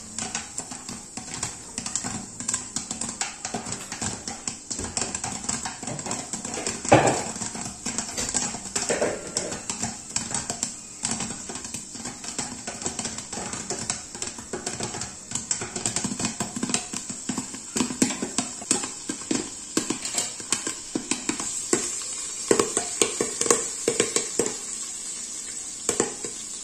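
Popcorn kernels popping under a glass lid in a pan of hot butter: irregular sharp pops, several a second, one louder pop about seven seconds in, over a faint steady sizzle.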